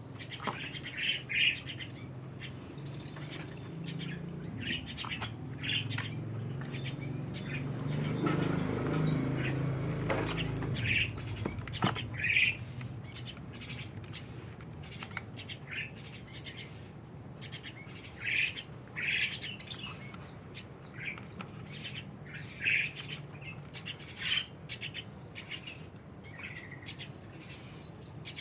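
A small songbird giving short, repeated chirps throughout, over a steady high insect trill. There is a low rumble for a couple of seconds about a third of the way in.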